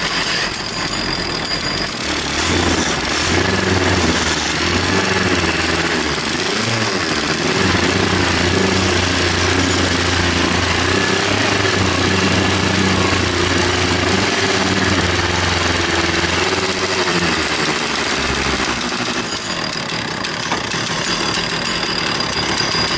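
Two-stroke chainsaw engine running flat out to drive a Lewis capstan winch that is hauling a car up trailer ramps. The note deepens from about two seconds in until near the end, when a higher whine returns.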